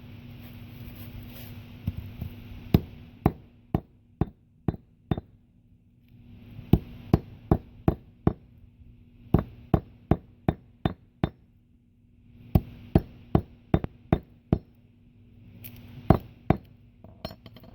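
Repeated sharp knocks of Piccolo Pete whistle fireworks being struck in the middle, in bursts of several quick blows with short pauses between.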